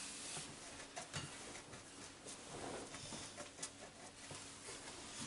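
Faint, scattered clicks and rustles of crayons being handled as a child picks through a plastic bin of crayons and colors.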